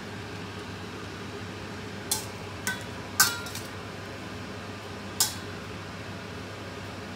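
Metal spatula knocking against the side of a stainless steel wok while stirring Chinese cabbage, about five sharp clinks with the loudest a little past three seconds in, ringing briefly. A steady low hum runs underneath.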